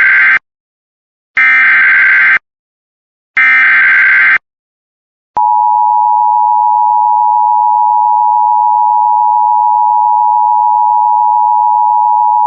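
Emergency Alert System SAME header and attention signal. First the end of one burst of digital data tones, then two more full bursts of about a second each. About five seconds in, a long steady alert tone begins and holds, announcing a severe thunderstorm warning.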